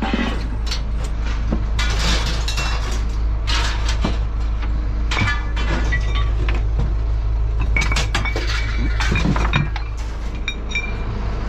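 Household junk being thrown out of a truck: a run of crashes and clinks of glass and metal, with things breaking, over a steady low rumble.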